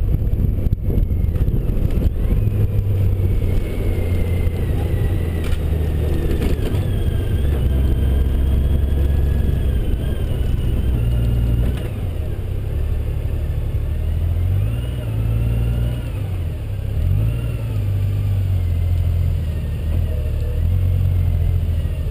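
Honda Gold Wing motorcycle engine running at low road speed, its pitch shifting up and down with the throttle, with a thin higher whine gliding along with it. The engine eases off about twelve seconds in.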